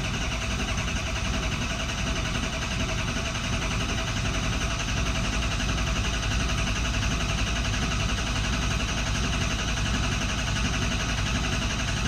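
Ford 6.0 Powerstroke V8 diesel turning over on the starter without firing, a steady even cranking: a crank-no-start with no oil pressure building.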